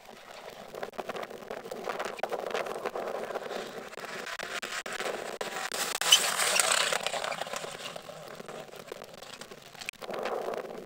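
Toyota Corolla rally car approaching and passing close at speed on a stage road, its engine and the gritty rush of tyres on loose surface swelling to a peak about six seconds in, then fading as it goes away. Near the end the sound cuts to another car's engine further off.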